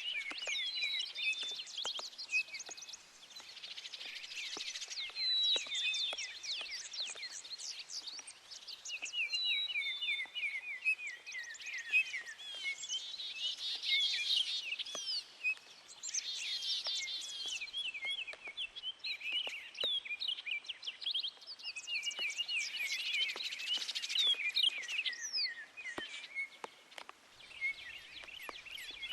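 Several birds singing and chirping at once, a continuous overlapping chorus of quick trills and repeated notes, over a faint patter of rain.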